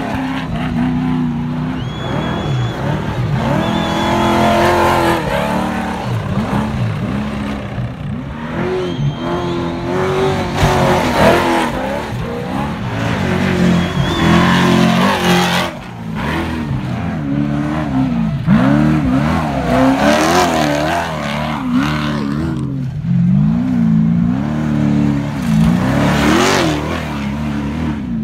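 Off-road race trucks speeding past one after another on a dirt desert course, their engines revving up and falling away in repeated waves as each goes by.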